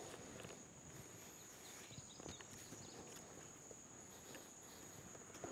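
Near silence: faint handling sounds of cord being wrapped around wooden poles, over a steady high insect drone.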